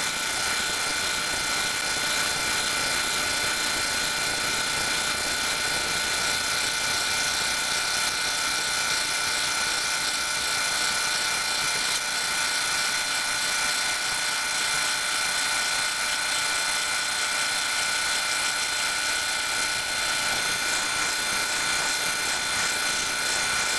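K40 40-watt CO2 laser engraver running while it engraves, a steady mechanical whir with several constant high whining tones over it.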